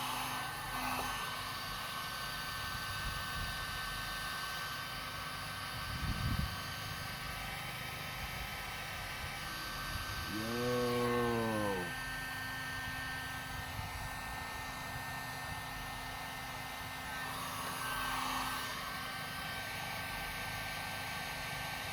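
Warrior electric heat gun running steadily with its fan hum while shrinking heat-shrink tubing over wire splices. A low thump comes about six seconds in, and a short pitched sound rises and falls about halfway through.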